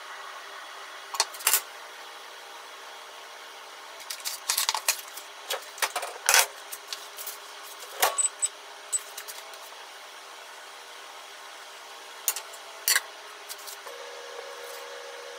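Kitchen handling sounds: scattered sharp clicks and knocks of a knife and dishes against a wooden cutting board and the counter, in several clusters, with a steady low hiss behind.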